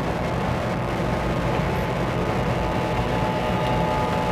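Racing outboard engine running flat out: a steady engine note over rushing noise, growing a little louder near the end.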